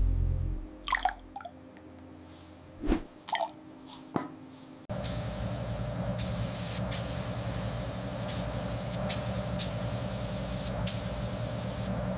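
A spray hissing in long bursts with brief breaks, starting about five seconds in. Before it there are a few small drips and clicks.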